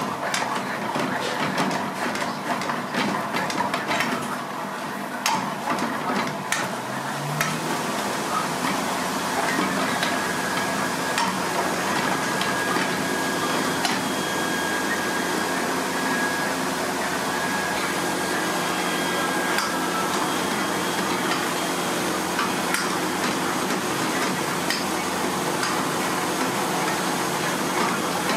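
Metal ladle scraping and clinking against a steel frying pan of thick gravy, with quick knocks for the first several seconds. After that it settles into a steady hiss from the gas flame under the simmering pan.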